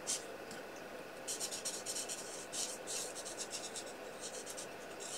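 Felt-tip marker colouring on cardstock: a quiet run of quick, short scratchy strokes starting about a second in, a brief pause, then more strokes near the end.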